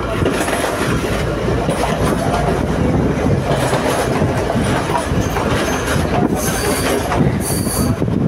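Passenger train running along the track, heard from inside the carriage by an open door: a steady rumble of wheels on the rails with some clickety-clack, and a couple of brief high wheel squeals near the end.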